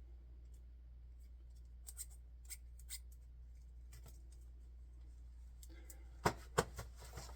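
Plastic zip ties being handled, with faint scattered clicks, then two loud sharp clicks in quick succession about six seconds in and a few lighter ones after.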